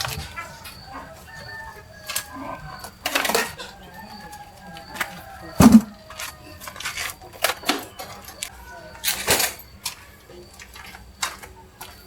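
Scattered knocks and clatter of objects being handled, with one heavy thud about six seconds in, over faint bird calls.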